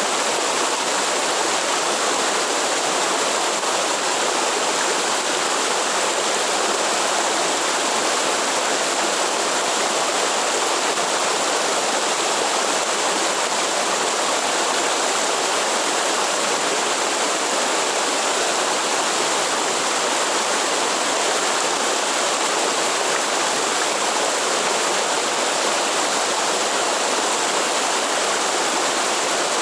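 Waterfall: water falling and splashing in an even, unbroken noise.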